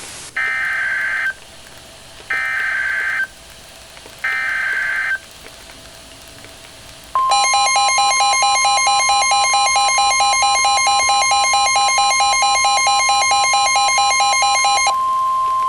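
Emergency Alert System SAME header: three short bursts of warbling digital data tones, about a second each and a second apart. After a short pause comes the attention signal, a steady high tone with a rapid pulsing tone over it, held for about eight seconds, with the steady tone lingering alone near the end. Together they are the signal that an emergency alert message follows.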